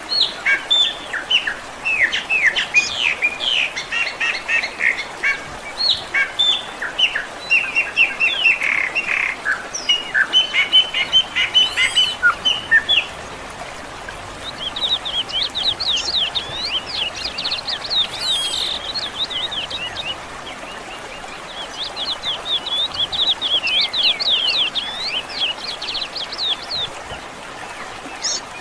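Several songbirds chirping and singing over a steady background hiss. A busy stretch of short chirps fills the first half, then after a brief pause come two runs of quick, rapidly repeated notes.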